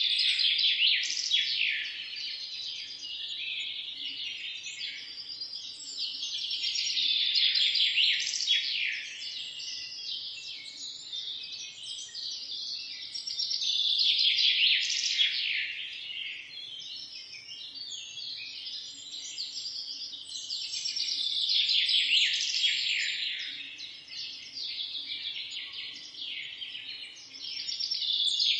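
Many small birds chirping together in a dense chorus of quick, overlapping high chirps, swelling louder and easing back every several seconds.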